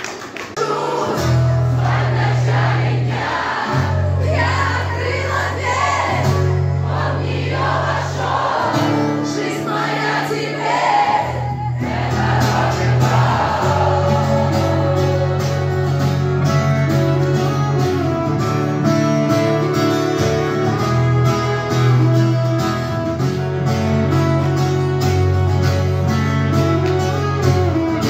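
Live band music starts about a second in: a woman sings over held low bass notes from a keyboard, with guitar and a bowed string instrument.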